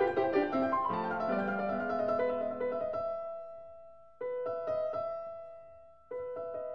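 Background piano music: a busy run of notes, then a held chord that fades away and is struck again twice, with quick repeated notes after each new chord.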